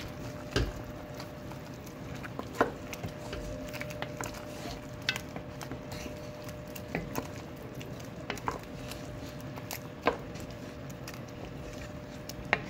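Wooden spoon stirring thick okra soup in an enamelled pot, knocking irregularly against the pot's side and bottom. A steady hum runs underneath.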